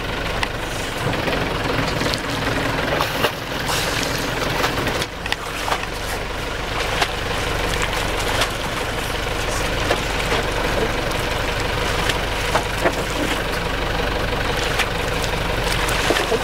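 Boat engine idling steadily, with water sloshing and short splashes alongside the hull.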